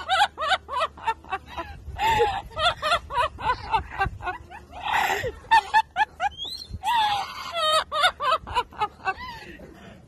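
Yellow-naped amazon parrot vocalizing in a rapid run of short, speech-like syllables that rise and fall in pitch. It thins out near the end.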